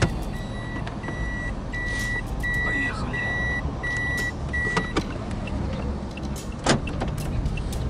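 Toyota car's reverse-gear warning beep sounding inside the cabin: one evenly repeated single-pitch beep about every 0.6 s, stopping about five seconds in as the car is taken out of reverse. A single sharp knock follows near the end.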